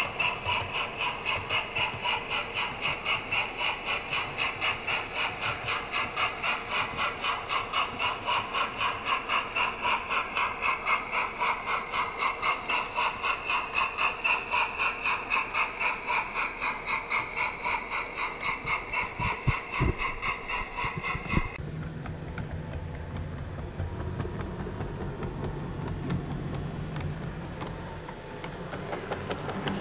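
Model steam locomotive's sound unit chuffing in a quick, even rhythm with hiss, cutting off abruptly about two-thirds of the way through after a couple of clicks. After that comes a quieter, steady low hum from a passing model diesel railcar.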